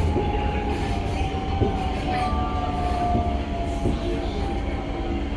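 C151A metro train heard from inside the car: steady wheel rumble under a motor whine whose pitch sinks slowly, as the train slows for the station.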